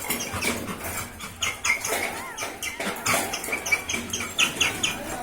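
Newborn Labrador puppies giving many short, high squeaks, with rustling and shuffling in between.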